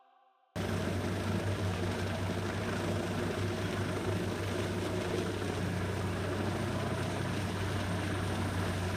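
Peterson 5710D horizontal wood grinder running, its 1,000-plus horsepower engine giving a steady, heavy drone with a grinding rush over it. The sound cuts in suddenly about half a second in and holds constant.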